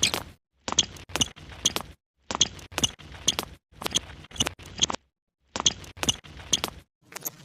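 Sharp clicks or taps, about two a second, in short clips of roughly a second each that start and stop abruptly with dead silence between them.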